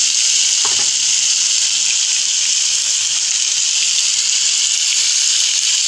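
Pork ribs frying in hot oil in a pan, a loud, steady, high-pitched sizzle.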